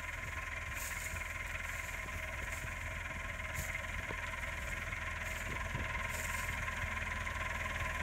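Tractor engine running steadily under load while pulling a crimper-roller through standing cereal rye. It grows slightly louder in the second half as the tractor comes closer.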